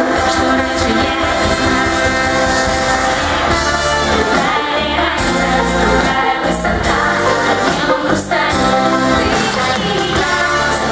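Live pop song: a woman singing into a handheld microphone over an amplified band with keyboard, drums and trombone.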